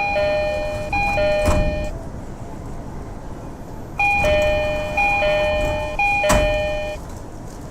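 Japanese commuter train door chime: a two-note high-then-low chime repeated about once a second. A set ends early on, and after a pause of about two seconds a new set of three plays. A sharp knock sounds during the second chime of each set.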